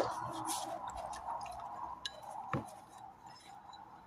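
Metal turbo parts being handled during washing: a few light clinks and one duller knock, with faint liquid dripping that fades away.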